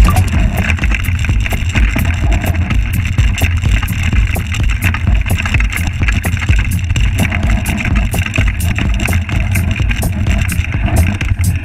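Mountain bike descending a rocky dirt trail: tyres rolling and crunching over loose stones, with frequent sharp clicks and knocks from the bike rattling, under a heavy low rumble of wind buffeting the camera microphone.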